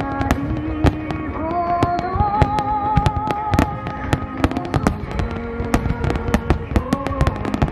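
Starmine fireworks barrage: rapid overlapping bangs of shells bursting, several a second, over music with a held, wavering melody.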